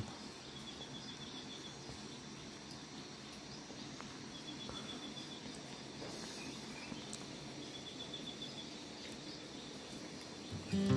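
Quiet rural ambience: a soft steady hiss with a short, high, pulsed insect trill repeating every few seconds. Music comes in just before the end.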